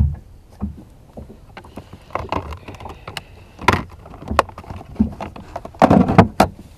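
Irregular clicks, taps and knocks from hands handling small fishing gear on a boat deck: a plastic dye bottle and a soft-plastic fluke lure. A louder cluster of knocks comes near the end.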